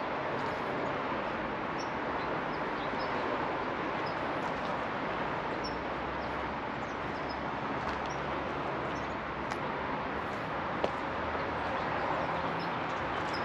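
Steady outdoor background noise with faint, scattered bird chirps and an occasional light click.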